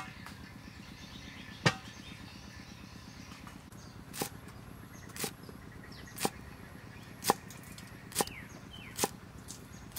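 Cleaver chopping long beans on a thick wooden chopping block: single sharp chops spaced about a second apart.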